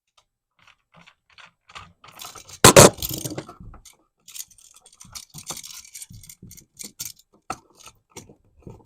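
Screwdriver and small metal parts clicking and scraping while the ground screw of a new electrical receptacle is loosened, with one loud knock a little under three seconds in.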